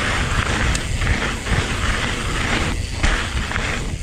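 Electric mountain bike riding down a loose dirt trail: wind rushing over the microphone with a heavy rumble, knobby tyres rolling over loose gravel and the bike rattling, with a couple of brief lulls near the end.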